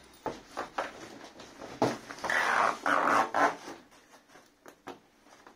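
Padded fabric soft gun case being handled and dragged against a cardboard box: rustling, light knocks and clicks, with a louder scrape lasting about a second just past two seconds in.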